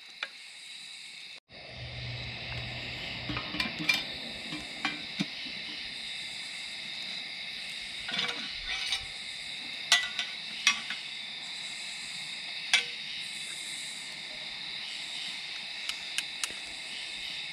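Steady high chirring of night insects, crickets. A dozen or so sharp clicks and knocks are scattered through it.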